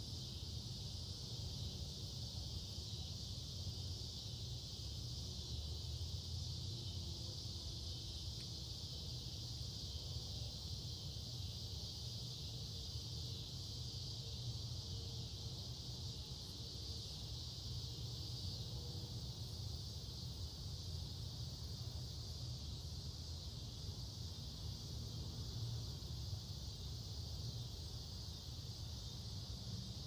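Steady evening chorus of insects, a continuous high even drone, over a low steady rumble.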